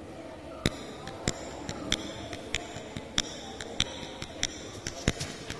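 Karaoke backing track intro: a steady beat of sharp percussion taps, about three every two seconds, with a faint ringing between them, starting about half a second in.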